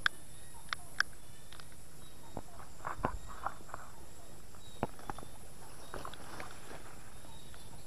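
Steady high-pitched chorus of night insects such as crickets, with irregular light clicks and a few soft knocks scattered through it, the clearest about three and five seconds in.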